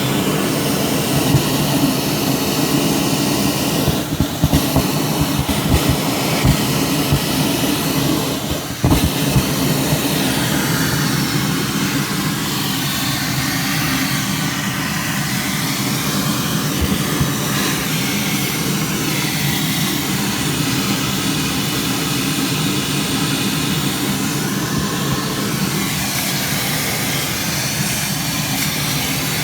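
A motor-driven fan or blower running steadily with a low hum under a broad whoosh, with several knocks and clunks in the first nine seconds.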